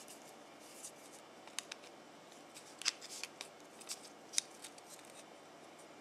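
Faint, irregular metallic clicks and light scrapes as digital calipers are slid and set against a metal sliding-door hinge arm to measure a hole's position.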